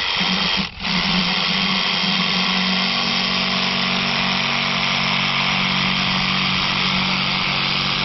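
Power saw motor running steadily at one speed, with a brief drop under a second in.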